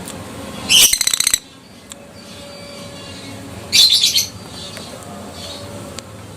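Adult lovebird giving two short, shrill, rapidly pulsed chattering bursts, one about a second in and another about three seconds later.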